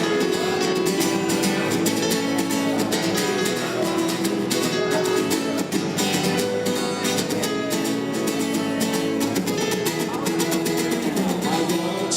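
Instrumental break of a song: fast strummed and plucked acoustic guitar with a steady rhythm, in a flamenco-like style.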